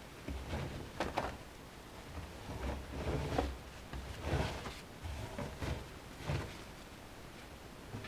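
Damp laundry being pulled by hand out of the stainless steel drum of a Miele Softtronic W 435 front-loading washing machine: irregular rustling of wet fabric and a few soft knocks against the drum, fading out near the end.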